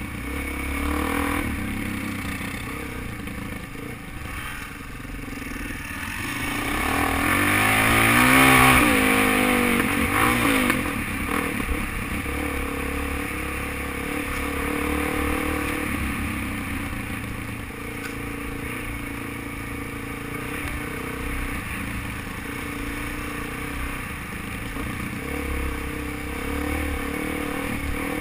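Suzuki DRZ400 dual-sport motorcycle's single-cylinder four-stroke engine running under way on a dirt trail. It revs up to its loudest about eight seconds in, then eases back to a steady run for the rest of the time.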